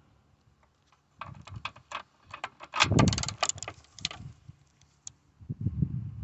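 Ratchet and 10 mm socket clicking and rattling in irregular runs, thickest about three seconds in, as the air-box bolt is worked loose, with a single click near five seconds and low knocks near the end.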